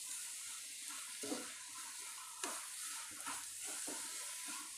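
Wheat-flour halwa of ghee, water and sugar sizzling softly in a non-stick kadai as a spatula stirs it, with a few faint scrapes of the spatula against the pan.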